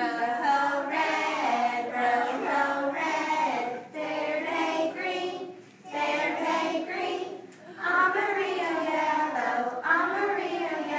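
A group of young children singing a song together without instrumental accompaniment, in short phrases with brief breaks between them.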